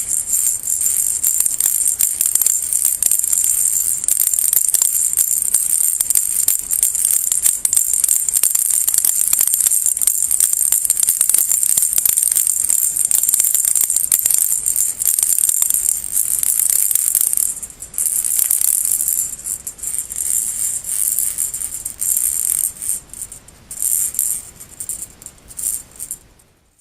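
Baby rattle shaken with a continuous, fast, bright rattle; about two-thirds of the way through it breaks into shorter shakes with pauses, then dies away at the end.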